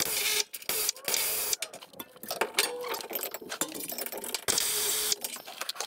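Hand ratchet wrench clicking in a series of short bursts, working bolts loose on the RV's rear air-bag bracket.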